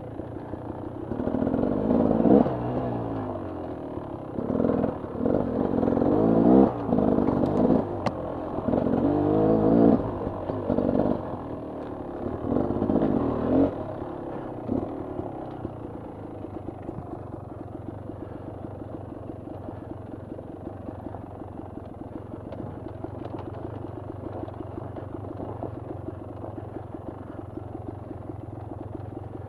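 Dirt bike engine revving in repeated surges as the rider works the throttle along a rough trail. After about half the time it settles to a steady, quieter low-throttle running note.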